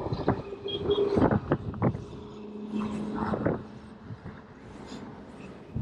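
Wind gusting on the microphone, with a spinning reel being cranked to retrieve a lure: a faint steady whir and a few sharp knocks and rattles.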